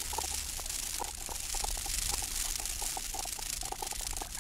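Sonic Kayak sonification: a granular synthesiser scattering short grains of animal sound, many quick irregular blips a second in the middle range, over a steady hiss of water and wind.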